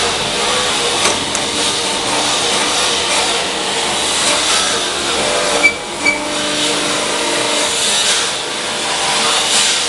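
Automatic paving-block machine running with a loud, steady mechanical noise. About halfway through the noise dips briefly and two short high-pitched blips sound.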